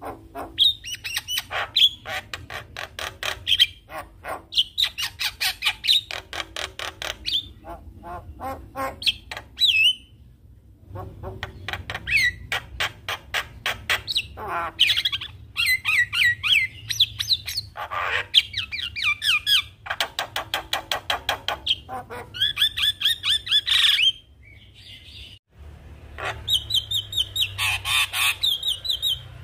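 Javan myna singing busily: rapid runs of harsh clicking chatter mixed with whistled notes, in bouts broken by short pauses about a third of the way in and near the end.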